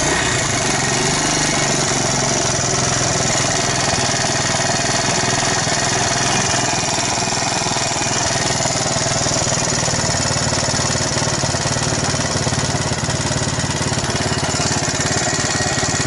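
Alpha moped's single-cylinder four-stroke engine, rebuilt with a 110 cc piston kit and crankshaft, idling steadily with a knock from the cylinder head. The owner puts the knock down to the piston apparently striking a narrower head gasket meant for the 72 cc cylinder.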